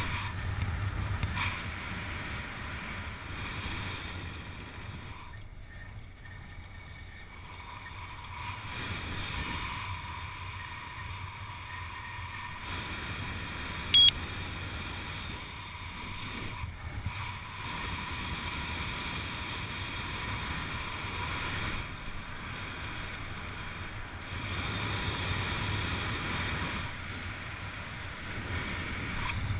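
Air rushing over a helmet-mounted camera's microphone during a parachute descent under an open canopy, swelling and easing. One short, sharp sound stands out about halfway through.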